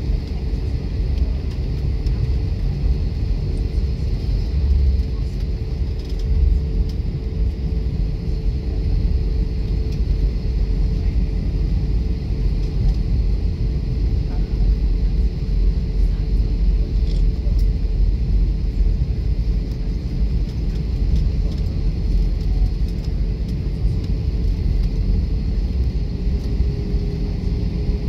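Cabin noise of an Airbus A320 taxiing, heard from a window seat: a steady low rumble from the idling jet engines and the wheels rolling on the taxiway, with a faint steady hum.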